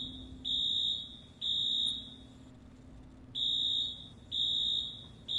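Fire alarm beeping in the temporal-three evacuation pattern: high-pitched beeps of about half a second each, in groups of three, with a pause of about a second and a half between groups.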